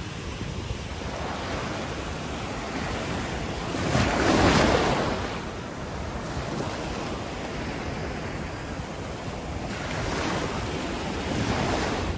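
Small Gulf surf breaking and washing up the sand at the water's edge, with wind buffeting the microphone. A louder wash comes about four seconds in, and another near the end.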